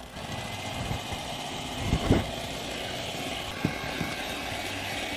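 Electric hand mixer running steadily, beating meringue (egg whites and sugar) in a bowl, with two short low knocks about two and three and a half seconds in.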